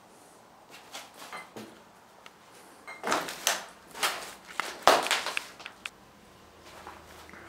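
A metal desk drawer being pulled open and its contents handled: a run of knocks, scrapes and rattles, loudest from about three to five and a half seconds in.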